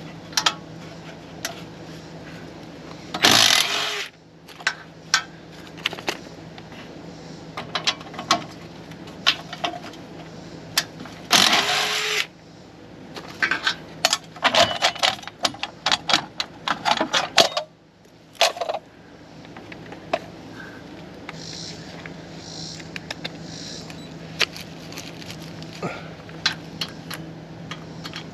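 Hand tools on the steel frame of a camper: irregular metal clicks and clinks as a wrench works at the mounting bolts of an old stabilizer jack to remove it, with two louder bursts of noise a few seconds in and about twelve seconds in.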